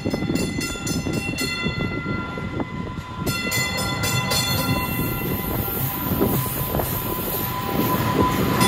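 Green Line Breda Type 8 light-rail train pulling into the station, its motors and wheels running with a steady rumble and hum that grows louder as it comes alongside. Twice in the first half it sounds a warning signal in rapid, evenly pulsing tones.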